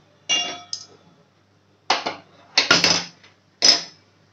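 Metal ladle scraping and clinking in an aluminium kadhai of chhole gravy, four short strokes with two sharp clicks about three seconds in.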